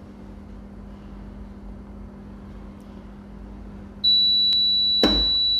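Pump motor running with a steady hum, then about four seconds in the pump controller's alarm buzzer sounds a loud, steady high-pitched tone as the panel trips on reversed phase sequence. A sharp click follows about a second later.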